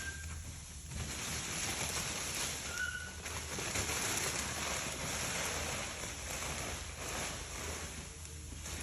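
Packing wrap rustling and scraping as it is handled and pulled, with two brief high squeaks, one at the start and one about three seconds in.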